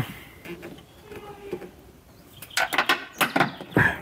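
Hands working parts inside a car door during reassembly: a sharp click at the start, a few faint knocks, then a burst of clattering and rattling clicks near the end.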